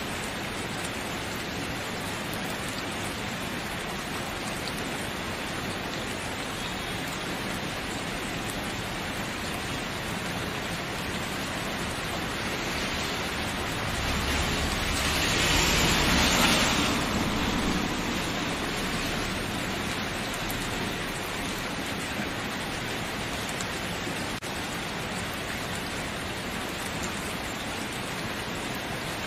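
Steady rain falling, a dense even hiss, swelling louder for a few seconds about halfway through.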